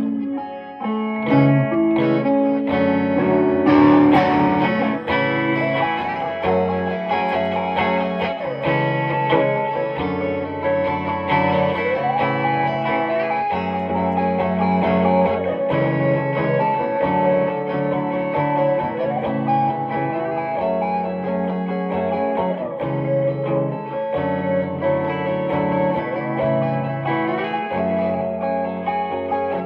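Electric guitar played through effects in a continuous jam: held low notes and chords under a melodic line, with frequent bends sliding the pitch of notes up and down.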